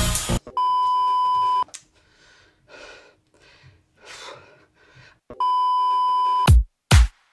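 Two beeps of a steady, high TV test tone, each about a second long and about five seconds apart, like the tone played over colour bars. Faint murmuring between them; deep drum hits start near the end.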